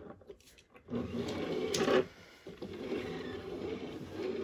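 Handling noises from die-cast toy cars being moved about: rustling with a sharp click a little under two seconds in, then continued shuffling.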